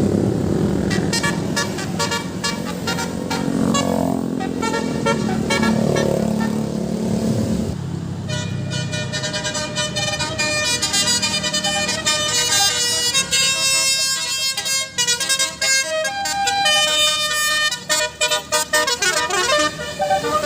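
Indonesian bus 'telolet' musical horn (Basuri type) playing a quick run of melody notes, the notes clearest and loudest from about eight seconds in. Before that, a lower vehicle sound with short repeated horn blasts.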